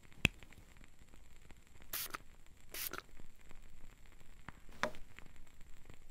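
Two short hissing sprays about a second apart from a pump spray bottle misting liquid onto a toenail, after a sharp click just after the start, with faint small ticks and crackles throughout and another shorter sound near the end.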